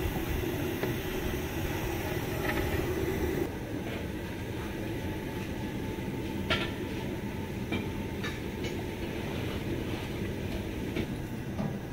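A steady low rumble, louder for the first few seconds. Later come a few sharp metal clinks, like a ladle knocking the side of a large aluminium cooking pot.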